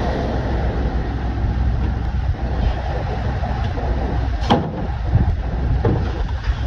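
Fishing boat's engine running steadily under a wash of wind and breaking waves against the hull in a rough sea, with one sharp knock about four and a half seconds in.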